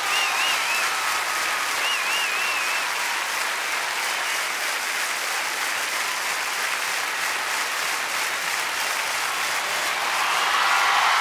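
A crowd applauding steadily, with a high warbling whistle sounding twice in the first three seconds.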